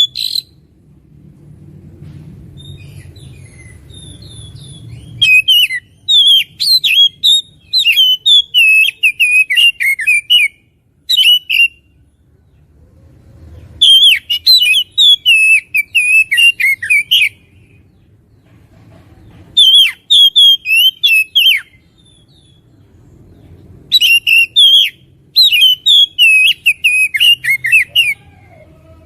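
Oriental magpie-robin (kacer) singing loudly, in bursts of rapid, varied whistles and chirps a few seconds long, separated by short pauses.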